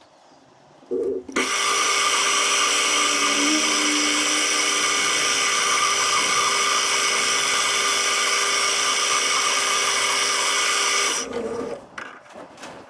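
A short knock, then an electric power tool motor starts and runs at a steady speed with a high whine for about ten seconds before switching off and winding down.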